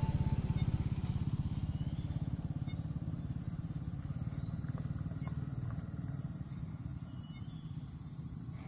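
An engine running steadily with a rapid low throb that slowly fades away.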